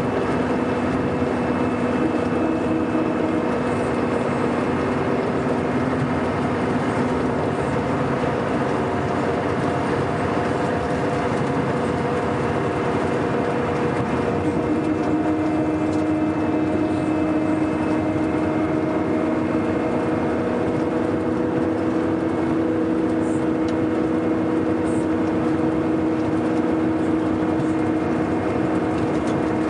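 Scania K420 coach's diesel engine running steadily under way. Its hum shifts a little in pitch about halfway through.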